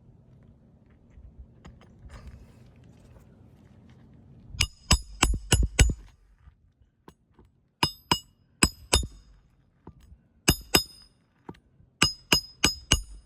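Hammer driving 1-inch roofing nails through an asphalt shingle: sharp metallic strikes with a high ringing ping. They start about four and a half seconds in and come in four quick flurries of two to six blows.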